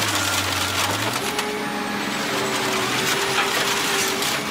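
Heavy diesel machinery running steadily, its engine note shifting about a second in, with scattered knocks and clanks.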